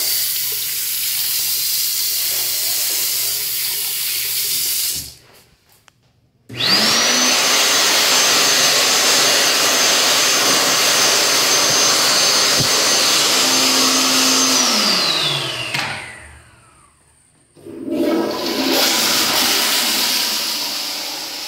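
Water from a sink faucet runs for about five seconds and shuts off. A World Dryer SLIMdri hand dryer then starts with a quickly rising whine, runs steadily for about eight seconds and winds down with a falling whine. Near the end a flushometer toilet flushes with a rush of water.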